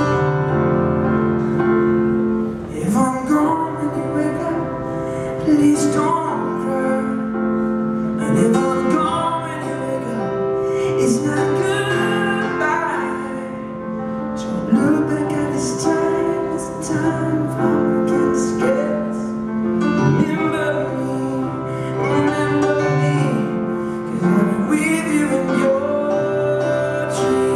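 Live solo performance: a male singer accompanying himself on a stage keyboard with a piano sound, the piano chords alone at first and the voice coming in about two and a half seconds in.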